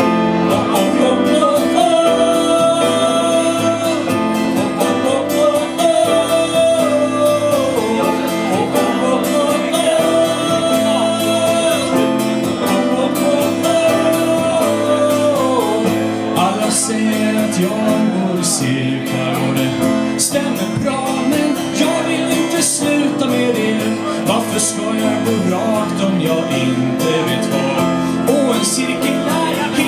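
Live acoustic band playing a song: strummed acoustic guitar with keyboard and a second plucked string instrument, and a singing voice over it.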